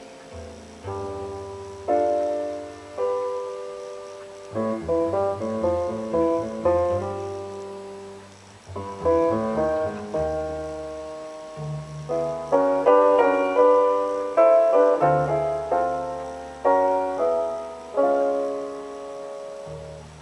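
Solo piano recording played back over Dynaco A-10 loudspeakers driven by a Technics SE-A100 power amplifier: struck chords over a bass line, each note ringing and fading, louder in the middle.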